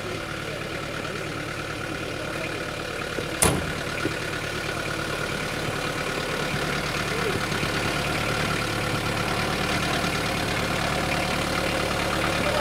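Engine of a small four-wheel-drive utility truck running at low speed, growing gradually louder as the truck comes closer. A single sharp knock about three and a half seconds in.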